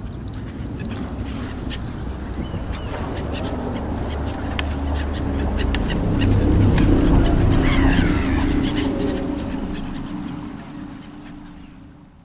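A layered soundscape mix of London field recordings: a low rumble with clicks and ticks, and bird calls through the middle. It builds to its loudest about seven seconds in, then fades out at the end.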